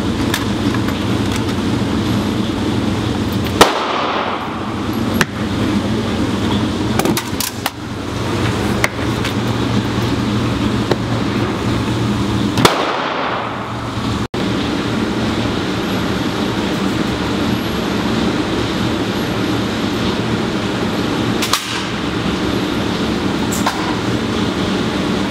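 Steady low hum of an indoor shooting range, broken by a handful of sharp single gunshots. The loudest shot comes about four seconds in and another just before the middle.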